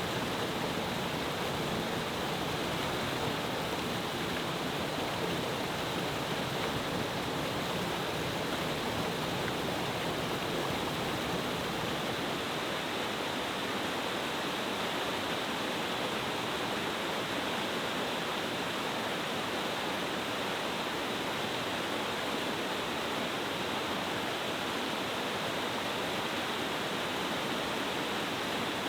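Cascading mountain-stream waterfall, water falling over several steps in a steady, unbroken rush.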